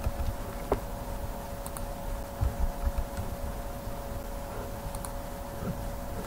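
A few scattered computer keyboard and mouse clicks over a steady, many-toned hum, with some soft low thumps about midway.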